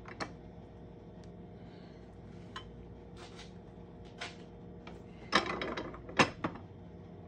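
Metal clicks and clinks from a hand-lever arbor press and its steel cone and die as a copper coin is pressed into a ring shape and the parts are handled. The loudest is a cluster of sharp clinks about five to six and a half seconds in.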